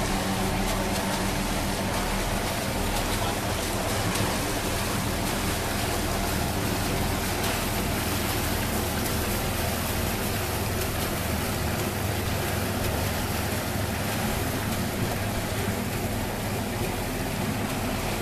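Passenger cruise boat's engine running steadily as it passes, a low hum under a constant hiss of churned water.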